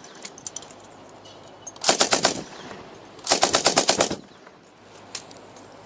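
M60 machine gun firing two short bursts of rapid shots, the second a little longer, about a second apart.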